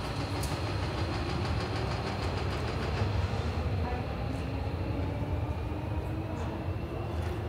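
Hankyu electric commuter train running along the station platform, a steady low rumble with a faint whine that slowly rises in pitch.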